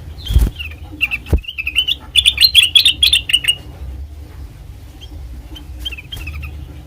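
Kutilang emas bulbul calling: a few chirps, then a rapid chattering run of notes about two seconds in, and a few short chirps near the end. Two dull thumps in the first second and a half.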